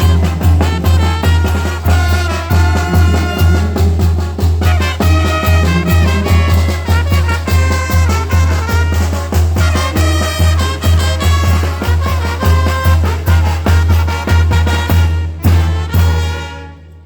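Live Mexican brass band (banda) playing, trumpets and trombones over a steady low, pulsing bass beat; the piece ends and the sound drops away just before the end.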